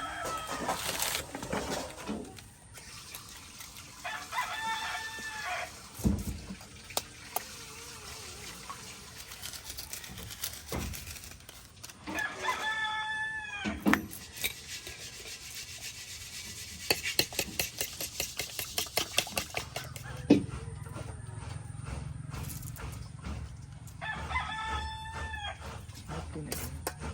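A rooster crows three times, each crow about a second and a half long and dropping in pitch at the end. In between there are scattered knocks and a run of quick taps.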